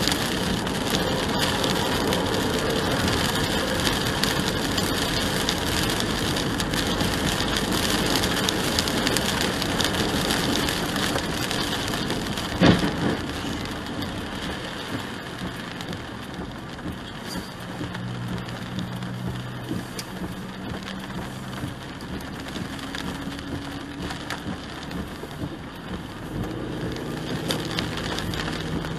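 Steady hiss of rain and tyres on a wet highway, heard from inside a moving car, with one sharp thump about halfway through. After the thump the hiss is quieter and a low steady hum comes through.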